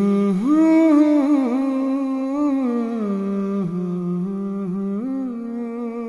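A solo voice sings a slow, wordless melody in long held notes, with quick ornamental turns and slides between them.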